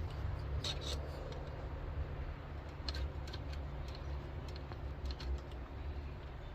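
Scattered light clicks and taps of small parts and tools being handled, a quick cluster about a second in and more through the middle, over a low steady hum.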